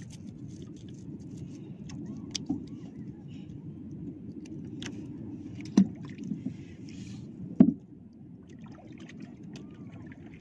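Steady low wash of water around a small wooden outrigger boat, with scattered small clicks from handling and two sharp knocks, one just past halfway and another about two seconds later.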